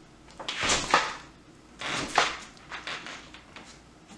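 The latch and handle of a sliding patio door being worked against the jamb, making two rattling knocks about a second and a half apart, then a few light clicks. The latch is not fully engaging its keeper.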